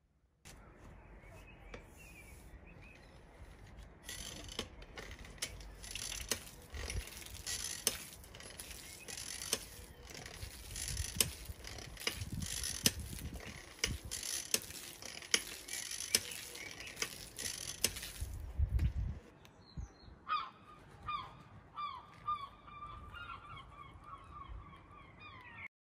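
Restored 1940 brass stirrup pump worked by hand, sending a hissing jet of water from its hose, with repeated sharp knocks from the pumping. The spray stops about two-thirds of the way through, and a bird then calls over and over.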